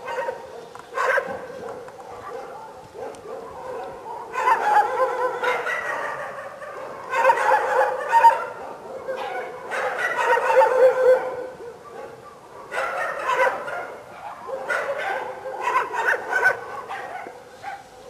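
Dogs barking in repeated bouts of a second or two.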